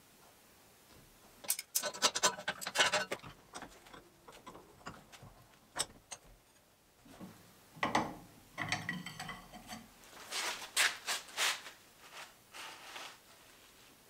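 Bursts of metallic clicking, rattling and scraping from a steel gear shift lever being handled and worked in a bench vise, in several separate spells with quiet gaps between.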